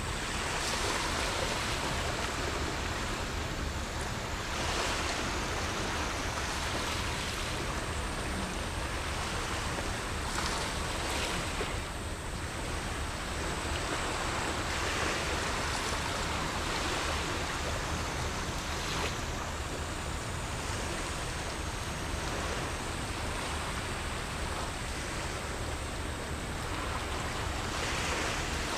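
Small sea waves washing against the shore, a swash swelling and fading every few seconds over a steady low rumble.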